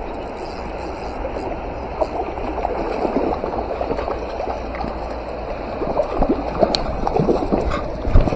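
River water flowing: a steady, fairly loud water noise with a busy, bubbling texture. A dull low knock comes near the end.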